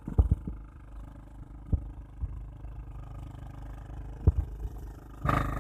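A power weeder's small single-cylinder engine running steadily as the machine tills along a furrow, earthing soil up onto the crop rows, with a few short sharp knocks over it. A louder noise comes in just before the end.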